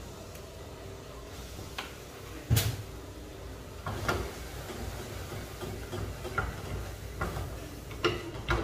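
Metal spoon and then a wire whisk knocking and clicking against an aluminium saucepan as spoonfuls of flour go into hot oil for a roux, with one sharp knock about two and a half seconds in and lighter scattered clicks after it.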